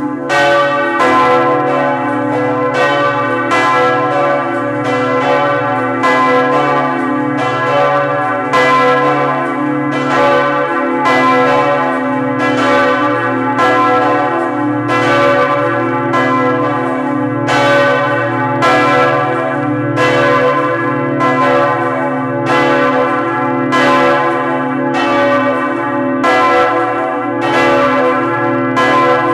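Two large Lhéritier-Dubois church bells of 2.2 and 2.5 tonnes ringing together in full swing, heard close up in the belfry. Their clappers strike about once a second over a dense, long-ringing hum that never dies away between strokes.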